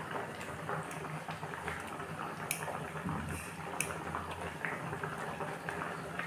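Pork intestine curry boiling in a pot with a steady bubbling, broken by a few light clicks and taps.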